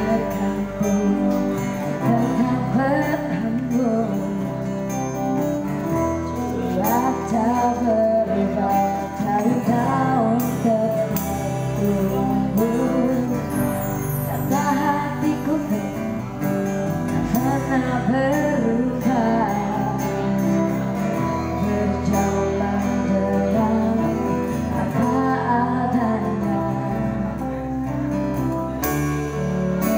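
A live acoustic band playing a song, with a voice singing the melody over acoustic guitar, keyboard and a bass line that moves every few seconds.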